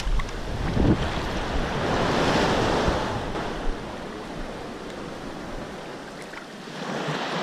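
Small surf breaking and washing up the sand, swelling about two seconds in, with wind buffeting the microphone until near the end.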